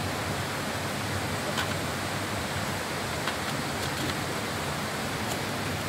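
Steady rushing of flowing stream water, with a few faint ticks.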